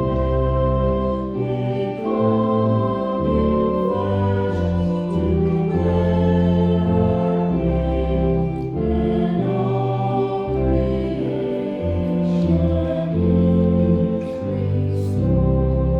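Hymn sung by voices over sustained organ chords, the chords changing every second or so.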